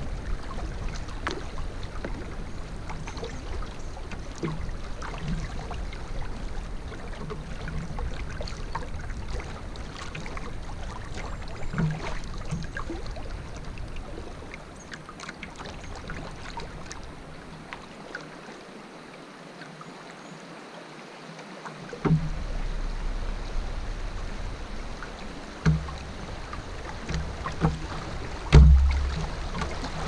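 Canoe on a flowing river: water moving against the hull with scattered small knocks and low rumble. The rumble drops away for a few seconds past the middle, and a heavy thump comes near the end.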